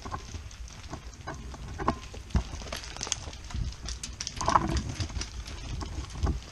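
Footsteps scuffing through dry grass and pine litter, with irregular knocks and rattles from the rifle and its mounted camera being carried and jostled.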